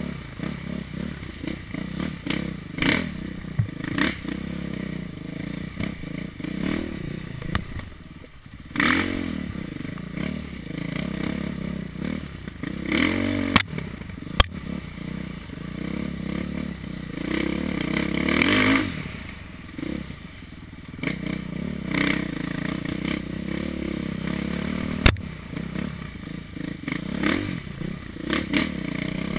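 Dirt bike engine revving up and down as the bike is ridden along a rough trail, easing off briefly about a quarter of the way in, with clattering and scraping from the bike over bumps and brush and a few sharp knocks.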